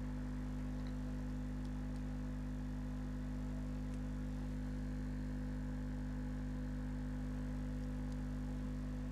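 JL Audio 10W7 subwoofer, driven by a JL 500/1 amplifier at low power (about 4.6 watts), playing a steady low test tone of about 50 Hz with its overtones.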